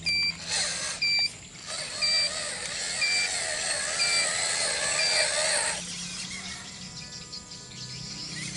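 Electronic beeping from a toy RC truck's sound unit: short beeps about once a second, six times, over a warbling tone, all stopping about six seconds in. A fainter steady hum and thin tones follow.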